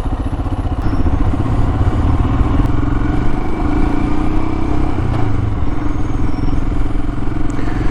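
Royal Enfield Himalayan's single-cylinder engine running on the move, heard from a helmet camera with wind and road rumble. The engine note climbs a little over the first few seconds, then holds steady.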